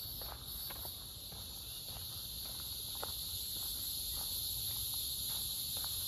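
A dense chorus of cicadas in the trees makes a steady, high buzz. Under it come soft footsteps on a dirt and leaf-litter trail, about two a second.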